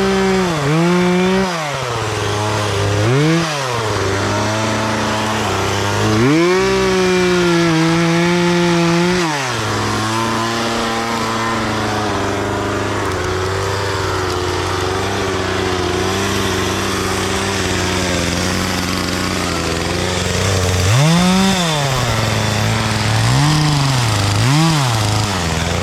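Two-stroke chainsaw running, revved up and down several times. It is held at high revs for about three seconds before settling lower and steady, then revved in short blips again near the end.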